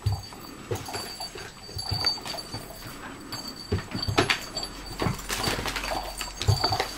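Dogs rummaging among plastic-wrapped treat packets and plush toys on a tatami mat: scattered rustles, paw taps and small knocks at irregular intervals.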